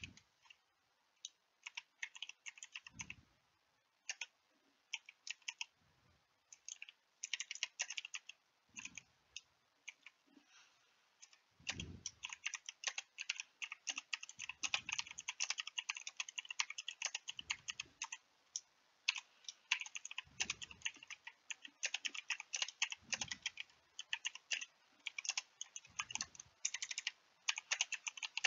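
Typing on a computer keyboard: quick, irregular runs of key clicks with short pauses between them. A soft low thump comes every few seconds.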